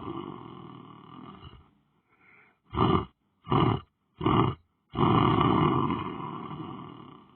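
A sleeping person snoring: a long, rasping snore trails off, three short snorts come in quick succession about three seconds in, and another long snore starts about five seconds in and fades away.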